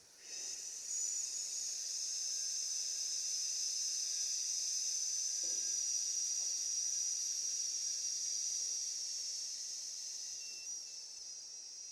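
A person making the lung healing sound of the Six Healing Sounds: one long, steady 'sss' hiss breathed out through the teeth, fading away near the end.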